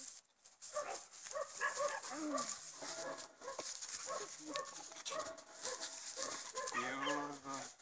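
Young German Shepherd dog giving a run of short, excited yelps and whines that rise and fall in pitch as it jumps at a ball dangled on a string, with a longer whine near the end.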